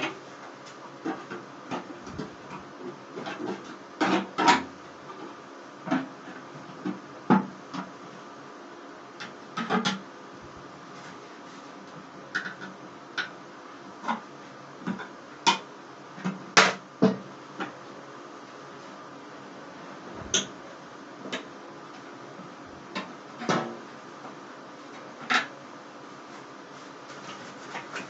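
Metal gullak (sheet-metal coin bank) being pried and bent open with a hand tool: irregular sharp clanks and scrapes of thin metal, a second or two apart.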